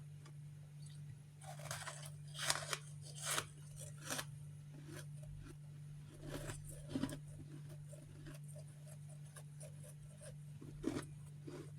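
Refrozen freezer frost chunks crunching as they are bitten and chewed: a run of sharp, crisp crunches in the first few seconds, then a few more later.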